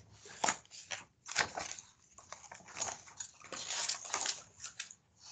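Pages of a large paperback picture book being handled and turned: a scatter of soft paper rustles and flaps, busiest about three to four seconds in.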